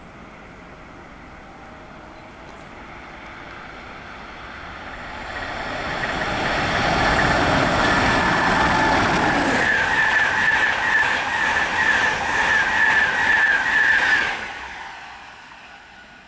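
East Coast InterCity 225 electric express, a Class 91 locomotive with Mark 4 coaches, approaching and passing at speed: a rushing wheel-on-rail noise that builds over several seconds, with a steady high whine on top while it passes. The noise drops away suddenly near the end.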